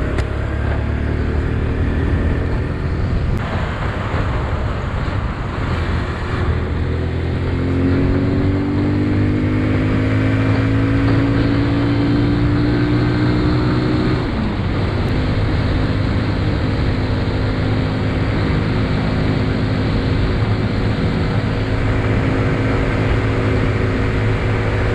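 Motorcycle engine running under way with wind rush, heard on board; the engine note climbs slowly for several seconds, drops suddenly about halfway through, as at a gear change or easing off, then holds steady.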